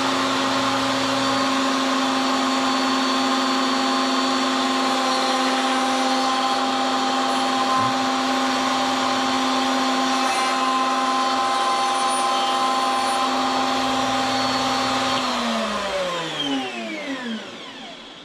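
Electric wood router running steadily at full speed while trimming a few thousandths off a dado to remove a missed spot, then switched off about fifteen seconds in and winding down with a falling whine.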